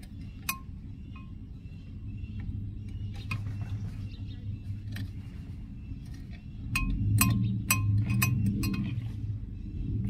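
Metal tools clinking against the brake caliper and its hardware while the caliper piston is pushed back: sharp, irregular clicks, each with a short ring. A low hum underneath grows louder about seven seconds in.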